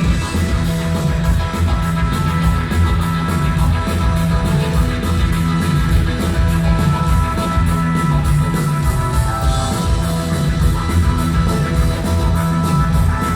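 Rock band playing loud electric guitar over drums, with cymbal strikes keeping a steady beat.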